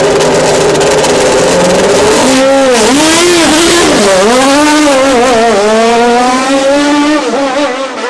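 Single-seater racing car engine holding a steady high idle, then blipped repeatedly from about two seconds in. The revs swoop down and up several times and climb near the end.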